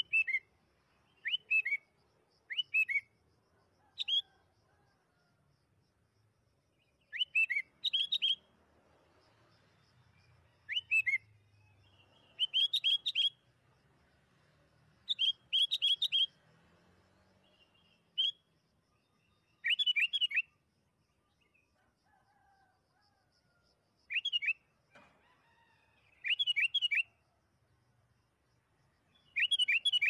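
Sooty-headed bulbul (kutilang) singing short bubbly phrases of two or three quick slurred notes, one phrase every few seconds with quiet gaps between.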